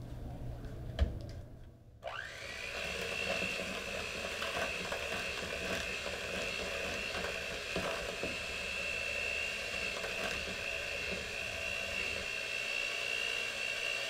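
A single knock about a second in, then an electric hand mixer switches on: its motor whine rises quickly and runs steadily while the beaters churn thick cookie dough in a plastic bowl.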